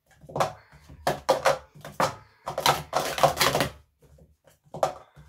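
Plastic sport-stacking cups clacking in quick runs as they are stacked up and brought back down on the mat. There is a brief pause about four seconds in, then the clacking starts again.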